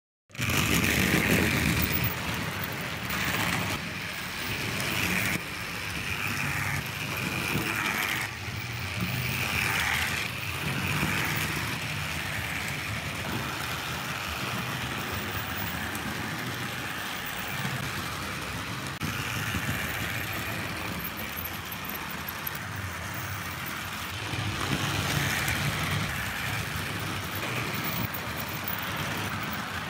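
Tri-ang Britannia OO-gauge model steam locomotive running along the track with its Pullman coaches: a steady electric-motor whirr with the rumble of wheels on the rails.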